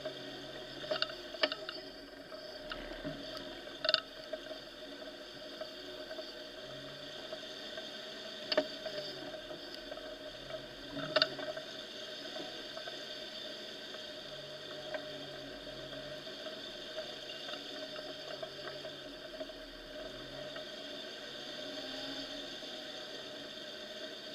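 Off-road vehicle driving along a waterlogged, rutted forest track: a steady, muffled engine drone with water sloshing under the wheels, and a few sharp knocks as it goes over the ruts, the loudest about 8 and 11 seconds in.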